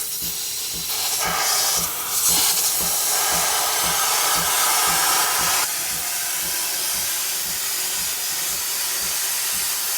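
Steam wand of a Breville Barista Express (BES870XL) espresso machine purging steam with a steady, loud hiss during its first-use flush. The hiss swells about a second in and eases back a little around six seconds. A low regular pulsing, two or three beats a second, runs underneath.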